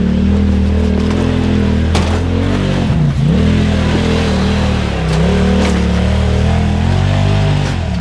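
Polaris RZR XP side-by-side's twin-cylinder engine running under load as it crawls over rocks, the revs mostly held steady with brief dips and pick-ups, about three seconds in and again near the end. A few sharp knocks sound over it.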